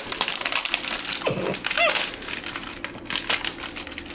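Plastic wrapper of a rice roll crinkling and crackling in irregular bursts as a capuchin monkey bites and pulls at it. A brief squeaky pitched sound comes about two seconds in.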